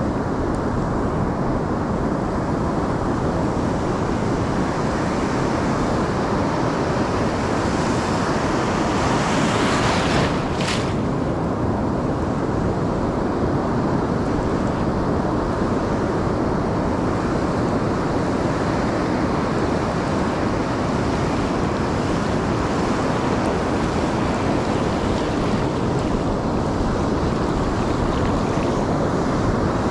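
Ocean surf washing steadily, with wind rumbling on the microphone. The rush swells and brightens from about eight to ten seconds in, then ends in a single short sharp click.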